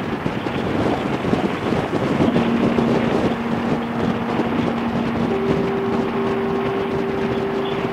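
Harley-Davidson motorcycle at highway speed: its engine running under heavy wind noise on the microphone, with road noise from a semi truck close alongside. A steady low whine comes in about two seconds in, and a higher one joins about five seconds in.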